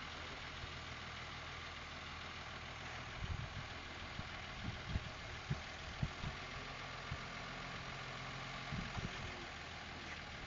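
An engine running steadily at idle, a low even hum, with irregular low thumps starting about three seconds in.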